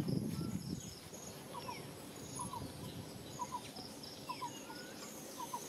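Outdoor ambience of bird calls and insects: one bird repeats a short double note about once a second, among fainter falling whistles and a high insect chirring. A low rustling handling noise sits at the start.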